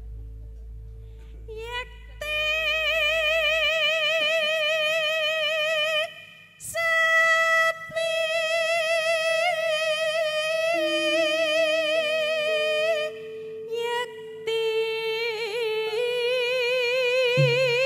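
Javanese sinden (female gamelan singer) holding long high notes with a wide, wavering vibrato, over soft steady lower tones. The singing breaks off briefly twice.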